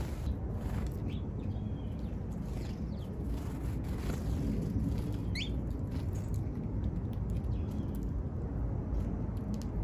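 Sparrows giving a few short, rising chirps, most of them in the first half, over a steady low rumble.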